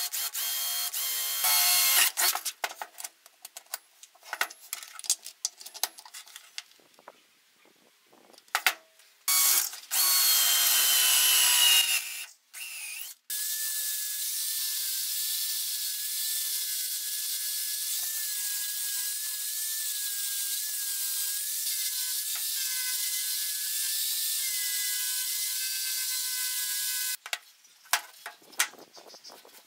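A cordless drill bores into a wooden block in short, stop-start bursts. About thirteen seconds in, an angle grinder with a sanding disc starts and runs at a steady pitch on the wood for about fourteen seconds, then cuts off, leaving light handling sounds.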